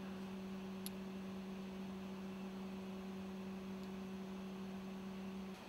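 Steady low electrical hum, one even tone with a fainter overtone, with a faint tick about a second in; the hum cuts off just before the end.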